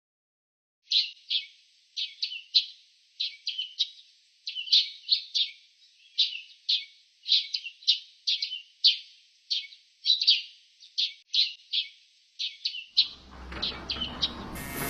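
A bird chirping: a long run of short, sharp chirps, a few a second in pairs and clusters. Near the end a steady low hum and noise fade in underneath.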